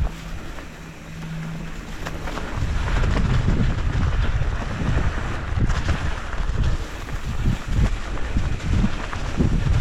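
Wind buffeting the microphone while riding a mountain bike on a trail. A steady low hum runs for the first two seconds or so; from about two and a half seconds in, the wind rumble gets much louder and gusty.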